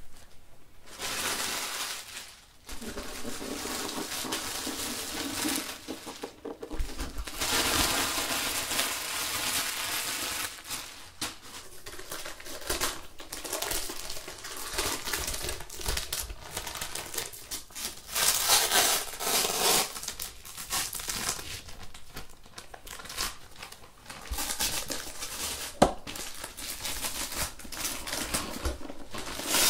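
Clear plastic wrapping crinkling and rustling in irregular bursts as it is worked off a Comfyer electric spin mop's base, with one sharp click late on.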